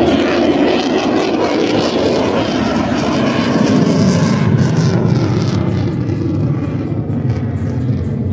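Fixed-wing aircraft flying past, a loud steady engine noise whose pitch slides downward as it goes by.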